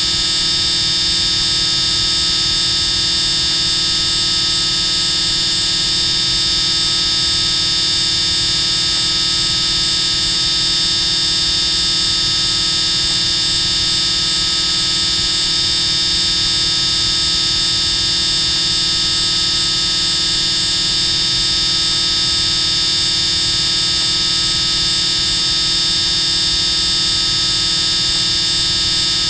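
Extremely loud, steady electronic buzz that holds one unchanging tone, with a harsh, bright high-pitched edge.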